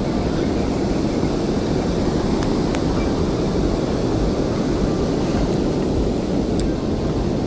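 Steady wind buffeting the microphone over water lapping against a small fishing boat's hull, with a few faint clicks.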